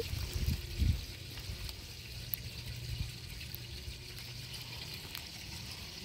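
Steady trickle of water circulating in a small backyard pond, from its pump-and-filter return.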